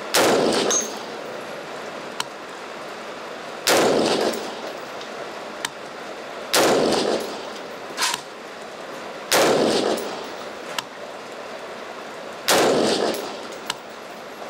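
Norinco CQA 5.56 mm AR-15-type rifle firing five single shots, about three seconds apart. Each shot is a sharp crack followed by a ringing echo that dies away over about a second.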